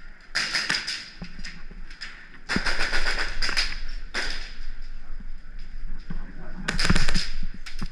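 Airsoft guns firing in rapid strings of shots: four bursts of quick clicks, with a pause after the third and the loudest burst near the end.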